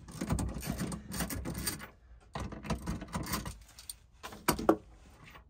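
Socket ratchet wrench clicking as it turns a terminal nut on a distribution bus bar: two runs of quick clicking with a short pause between, then a couple of louder clacks about a second before the end.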